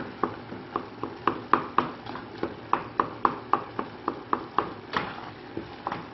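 Wooden spoon stirring in a stainless steel saucepan, knocking against the side of the pot about four times a second, each knock a short ringing clack.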